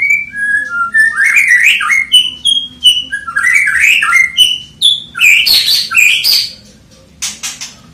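Caged black-tailed white-rumped shama singing loudly: a fast run of clear whistled notes that slide up and down, breaking near the end into a burst of harsh ticking notes.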